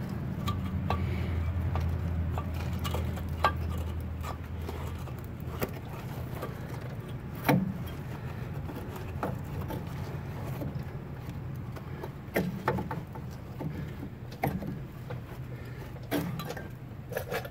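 Loose metal clinks, scrapes and a few sharper knocks as a gloved hand works a broken, rusted shock bolt out of a truck's shock mount inside the coil spring. A low steady hum runs underneath for the first five seconds or so.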